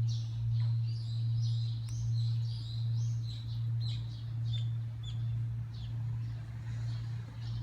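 The lingering hum of Senso-ji's large bronze temple bell after a strike, a low tone that wavers in slow pulses, about one every second or less, and gradually fades. Small birds chirp over it, mostly in the first half.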